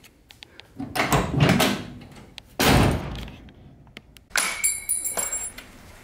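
Car door of a 1968–70 Dodge Super Bee being worked and then shut with a solid thunk about two and a half seconds in, after light clicks of the handle and latch. A brief ringing tone follows near the end.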